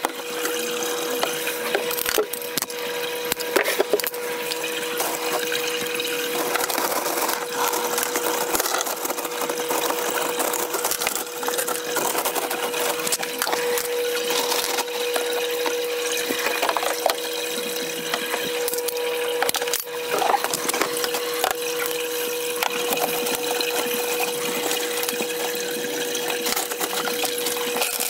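Sped-up sound of plastic drip tubing and fittings being handled and pushed together: a dense, fast crackle and clatter over a steady hum.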